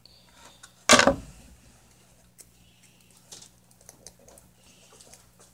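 Fingers handling a small 3D-printed plastic terminal block and a stripped copper wire, with faint small clicks and taps. One loud, brief noise about a second in, over a low steady hum.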